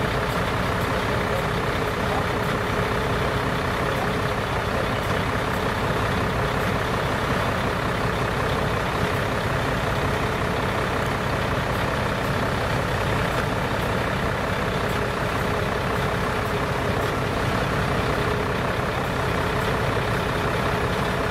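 Fire engine's engine running steadily at idle, a constant low rumble with a steady hum over it.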